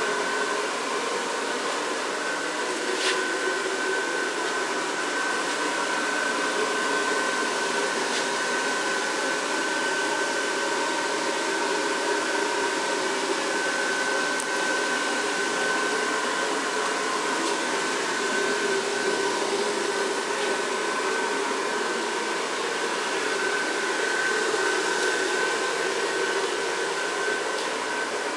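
The electric blower fan of an inflatable Christmas train decoration running steadily, a constant whir with a steady whine in it.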